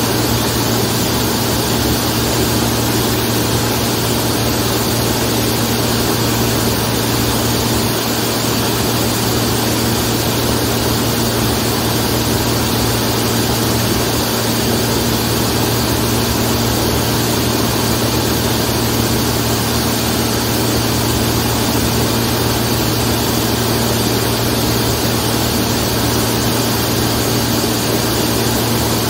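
Zlín Z-42 light aircraft's six-cylinder Avia M 137 piston engine and propeller running steadily, a constant even drone with no change in pitch.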